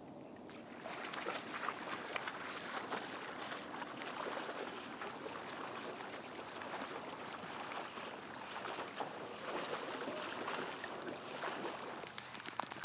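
Labrador retriever swimming through pond water: continuous splashing and sloshing, with many small crackling splashes.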